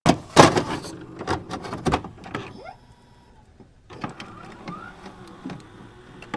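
A quick, irregular run of sharp clicks and knocks, loudest in the first two seconds, with a short lull midway and fainter clicks after it, plus a brief rising tone or two.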